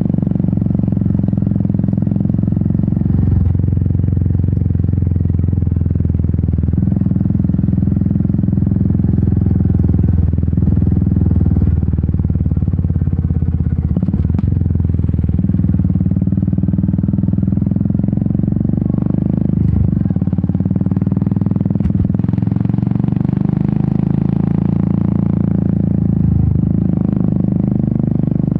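Royal Enfield Meteor 350's single-cylinder engine and exhaust running under way, its note rising and falling several times with throttle and gear changes, with brief dips in the engine sound.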